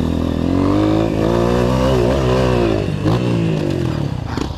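Honda CRF 230 trail bike's single-cylinder four-stroke engine revving under throttle. Its pitch climbs in the first second, dips briefly twice in the middle and falls away near the end as the rider eases off.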